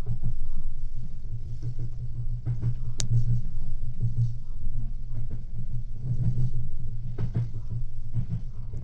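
Merseyrail Class 777 electric train running at speed, heard from inside the carriage: a steady low rumble with scattered light knocks, and one sharp click about three seconds in.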